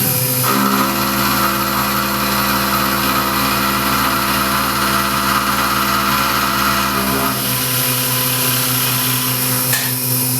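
Tormach PCNC 1100 CNC mill's spindle running and milling a 6061 aluminum block: a loud, steady machining sound. About seven and a half seconds in, part of the sound drops away and the machine runs on more lightly.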